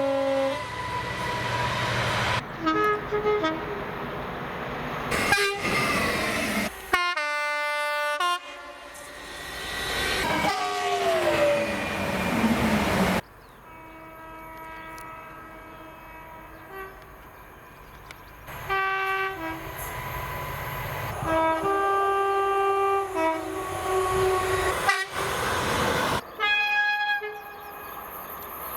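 A string of train horn blasts from several different trains, cut one after another, each horn sounding several notes at once. One horn drops in pitch as its train passes, and the noise of the moving trains runs under the blasts.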